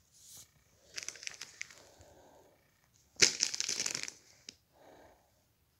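Foil wrapper of a One Piece Card Game booster pack crinkling and crackling as it is handled, with short rustles about a second in and a louder crackling burst just past the middle.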